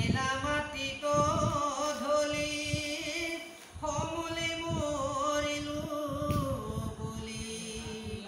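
Assamese devotional verse recitation: a man's voice chanting a verse to a slow, drawn-out melodic tune, holding long wavering notes in two phrases with a short break about three and a half seconds in.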